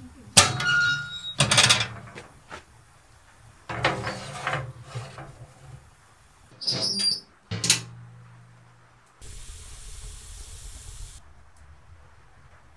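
Sheet-metal oven door of a wood-burning stove and a metal baking tray being handled: a few loud metal clanks and scrapes with ringing, the sharpest about half a second in and another clank near the end of the handling, about eight seconds in.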